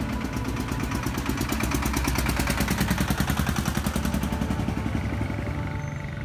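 A truck engine passes close by on the street with a fast, even chugging. It swells to its loudest about three seconds in, then fades.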